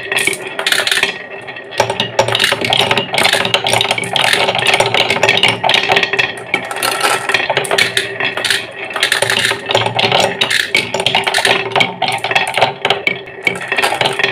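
Glass marbles rolling round and round a wooden funnel bowl one after another: a continuous rolling whir with a steady hum, dotted with clicks and knocks of glass on wood.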